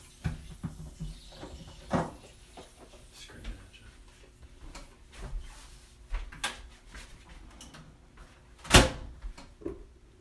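Scattered knocks and clunks of kitchen doors opening and shutting and things being handled and set down, with the loudest, a sharp knock, near the end.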